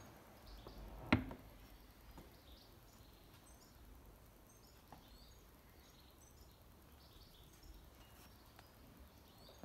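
Quiet background with one sharp click about a second in, and faint, short, high chirps repeating throughout; no engine running.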